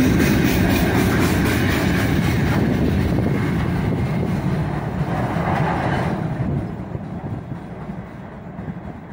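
Freight train's open gondola wagons rolling past on steel wheels, with a clickety-clack over the rail joints. About six seconds in the tail of the train has gone by, and the rumble fades as it rolls away.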